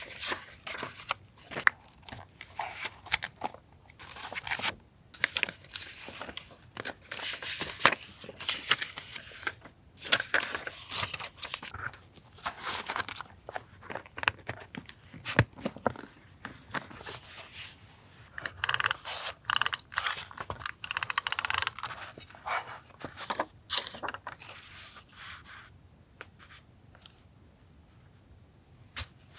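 Paper being handled for a collage journal: repeated tearing, rustling and light taps, with a longer tearing stretch about two-thirds of the way in, growing quieter near the end.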